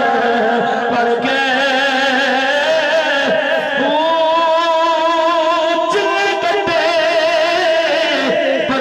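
Devotional singing in a Middle Eastern-style melody: a voice holding long notes with heavy, wavering vibrato, moving to a new note every second or two.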